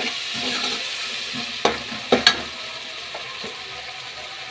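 Tomato masala with red chilli and turmeric sizzling in oil in a metal kadai while a steel spoon stirs it. About halfway through, the spoon knocks sharply on the pan three times, the last two close together.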